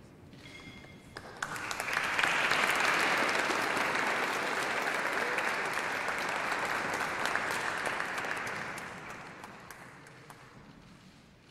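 Audience applauding. The clapping swells in about a second in, holds steady, and fades away over the last few seconds.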